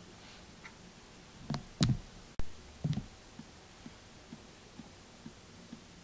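Screwdriver working the adjustment screw on a metal compressor pressure switch, with the switch handled by hand: a few soft knocks in the first three seconds, then faint light ticks.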